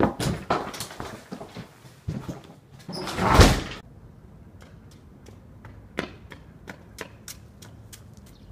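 A run of sharp knocks and clicks, then a louder slam-like thud with a short rush of noise about three seconds in, followed by scattered light ticks.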